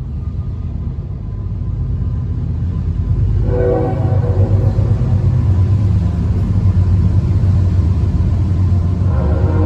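A train passing close by: a loud low rumble that builds over the first few seconds, with a brief horn-like chord about three and a half seconds in and again near the end.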